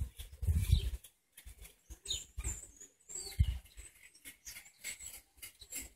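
Farmyard birds making scattered short high chirps among small clicks and pattering, with a low rumble on the microphone during the first second.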